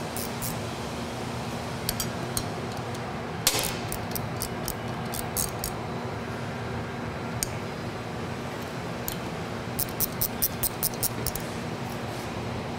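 Small metal parts lightly clinking and tapping against a pump as its cover is bolted back on, with a quick run of about eight clicks near the end. A steady low hum runs underneath.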